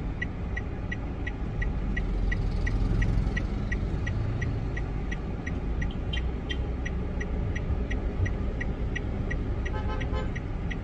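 Car engine running, heard from inside the cabin as a steady low rumble, under an even, rapid high-pitched ticking of about four short beeps a second.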